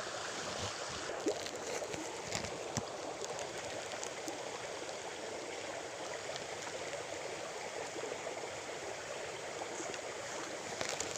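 Small stream flowing steadily, an even rush of running water, with a few faint ticks.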